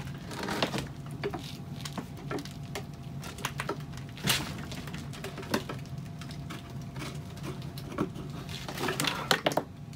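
Scattered clicks, knocks and light scrapes as a wooden form is worked loose from a freshly cast concrete box by hand, over a low steady hum.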